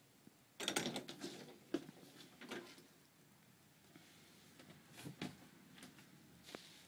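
Scattered light clicks, creaks and knocks, in a cluster about a second in and again around two and a half and five seconds in.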